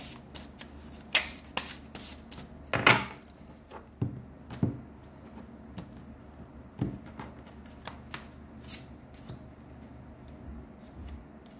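Tarot cards being handled and shuffled: scattered light clicks and slaps at irregular intervals, the loudest about three seconds in.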